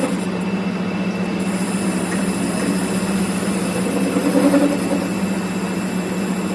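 A workshop machine running steadily with a constant hum.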